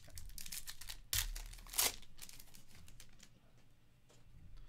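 Panini Certified football cards being slid and shuffled against each other in the hands: a run of quick scuffs and clicks, a sharp snap just after a second in and a brisk swish soon after, then quieter handling.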